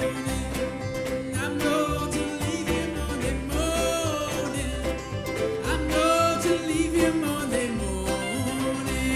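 Bluegrass band playing: fiddles bowing sliding melody lines over banjo, acoustic guitars and a bass keeping a steady pulse.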